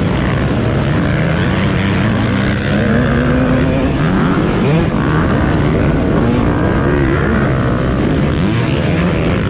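Motocross bikes racing in a pack, led by the rider's own KTM 250 two-stroke engine revving up and down through the gears, with other dirt bikes running close by.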